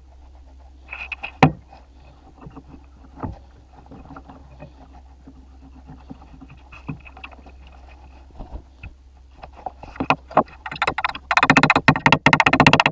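Small metal parts clinking and tapping as they are handled and fitted together on a workbench, with one sharp click about a second and a half in, over a low steady hum. About eleven seconds in, a much louder, dense, rapid crackling starts and keeps going.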